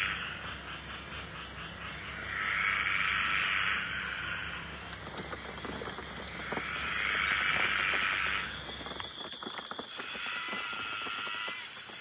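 Frogs calling: three long rasping trills, each about a second and a half, then from about ten seconds in a run of shorter calls that fall in pitch.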